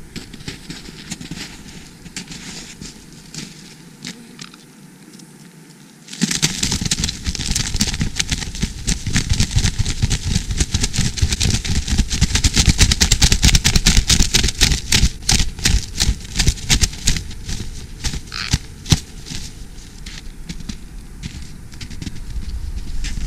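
Footsteps crunching through snow and dry brush, with rustling, crackling noise at many crunches a second. It starts faintly, turns loud about six seconds in, and eases off near the end.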